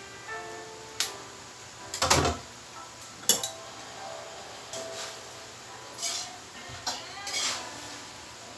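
Metal cooking utensils clanking and scraping against a metal wok while noodles and cabbage are stir-fried, about half a dozen sharp clanks spread through, the loudest about two seconds in.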